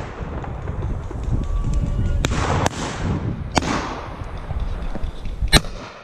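Shotgun shots on a pheasant shoot: four shots within a few seconds, the first three farther off and echoing, the last and loudest near the end. Wind rumbles on the microphone throughout.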